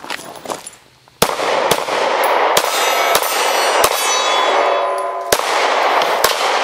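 SCCY CPX-2 9mm pistol firing a string of shots starting about a second in. Each hit sets the steel target plates ringing, and the clang carries on between shots.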